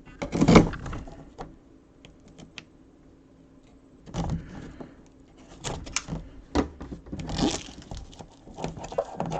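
Handling noise from a packaged jersey box being moved and readied for opening: scattered rustles, knocks and clicks, with a quieter stretch in the middle.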